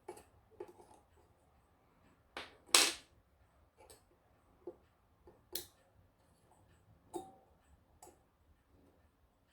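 Small metal clock-movement parts and tools being handled on a bench: a scattering of sharp clicks and clinks, the loudest about three seconds in.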